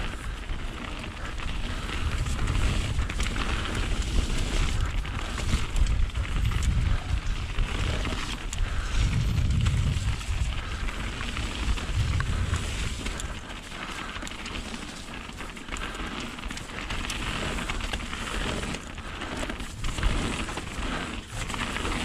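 Mountain bike ridden down a wet trail: wind rumble on the camera microphone over steady tyre noise, with many small knocks and rattles from the bike over the bumps. The rumble is heaviest in the first half and eases after the middle.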